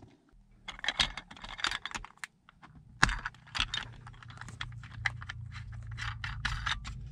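Plastic clicks and rattles of a phone mount being handled: the holder taken off its vent clip and its ball joint pressed into a suction-cup dash base. From about three seconds in, a low steady hum runs underneath.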